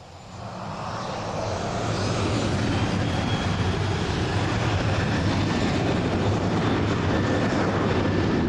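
Transavia Boeing 737's twin jet engines spooling up to takeoff power, rising over the first couple of seconds, then running steady and loud with a low rumble and a faint high whine.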